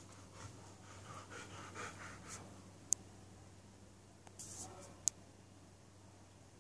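A dog sniffing close by in a quiet room, with faint rustling and two sharp clicks about two seconds apart.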